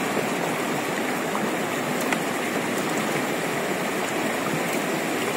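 River water running steadily over rocks.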